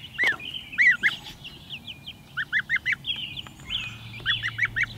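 A two-week-old gosling and chicks peeping: short, high cheeps, some single and some in quick runs of about four.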